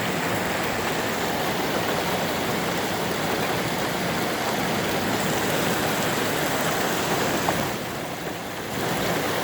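Floodwater rushing down a desert wadi after heavy rain: a steady rush of flowing water that softens briefly near the end.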